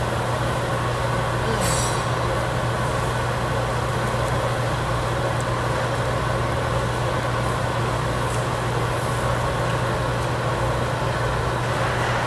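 Steady rush of a tabletop barbecue grill's overhead ventilation hood fan drawing air, with a low hum.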